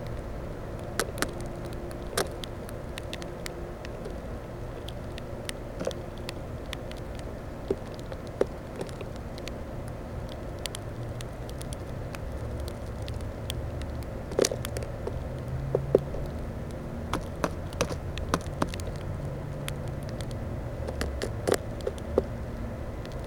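Birds pecking and scrabbling at seed in a Plexiglas bird feeder, making sharp irregular taps and clicks against the feeder. A low rumble over a steady hum swells and fades in the middle.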